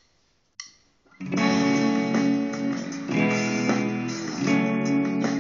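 Electric guitar improvising: after a short click that counts in, the guitar comes in about a second in, playing sustained notes and chords that change every second or so.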